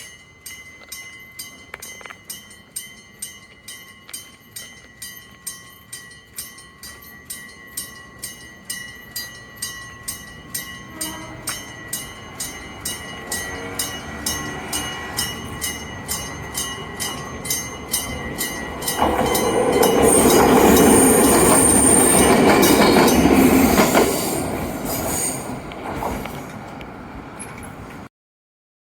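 Electric-bell level crossing warning bell striking about twice a second, each stroke a clear ringing tone. A train approaches about halfway through, passes loudly on the rails for a few seconds, then fades while the bell keeps ringing.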